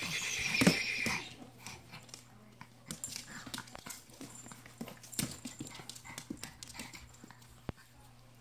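A small Chihuahua-type dog romping on a hard floor. Its claws click and tap in scattered bursts, after a louder rough noise in the first second or so.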